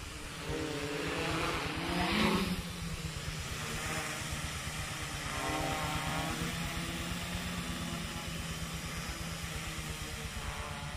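A homemade F450 quadcopter's motors and propellers buzzing in flight. The pitch rises and falls as the throttle changes, and it is loudest about two seconds in.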